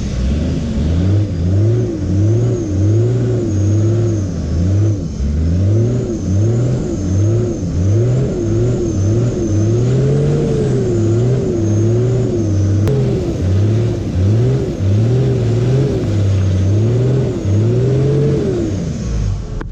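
Toyota 80 series Land Cruiser engine revving up and down again and again, the revs falling away near the end.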